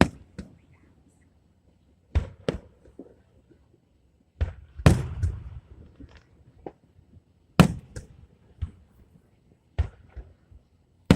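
Aerial fireworks shells bursting: a string of sharp booms at uneven intervals, about seven in all. One near the middle trails off for about a second.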